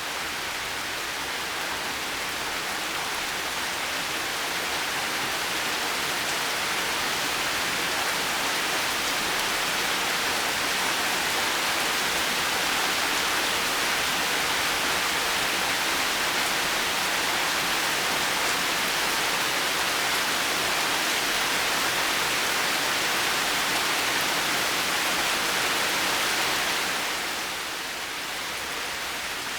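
Steady heavy rain falling, an even hiss that grows a little louder early on and eases back near the end.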